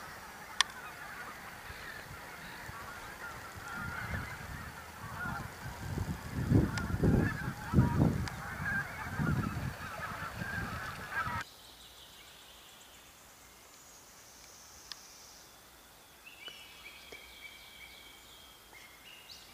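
A distant flock of wild geese honking and cackling continuously, with heavy low rumbles on the microphone from about six to ten seconds in. A little past halfway the sound cuts to a much quieter woodland, where a small songbird sings a few short phrases near the end.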